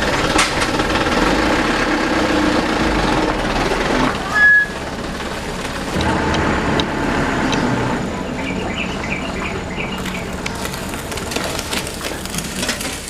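A heavy vehicle's engine running steadily near road works, with shovels scraping and spreading loose asphalt mix. A brief high squeal comes about four seconds in.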